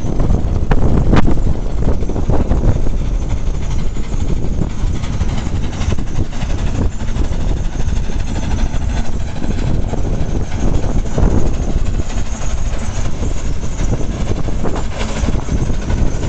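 Steam logging tractor running as it drives along, a steady mechanical chuffing and rattling, with wind buffeting the microphone.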